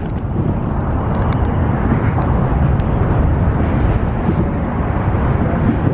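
A steady low outdoor rumble with a faint haze above it, and a few faint clicks about one to two seconds in.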